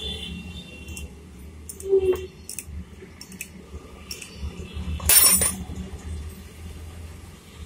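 Metal hand tools clinking and being handled on a wooden workbench, with a dull knock about two seconds in and a louder metallic clatter about five seconds in, as a spanner is set down on the bench.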